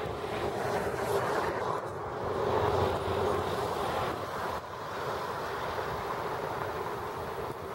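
Steady noise of road traffic passing on a bridge, with a faint engine tone in the first few seconds that fades away.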